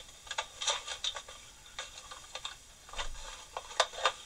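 Irregular light clicks and clinks of small metal machinist's measuring tools, such as dial indicators, being handled and set down in a drawer.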